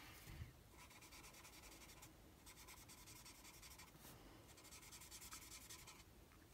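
Faint scratching of a felt-tip alcohol marker (Stampin' Blends) stroking across cardstock, in a few runs of strokes with short pauses between them.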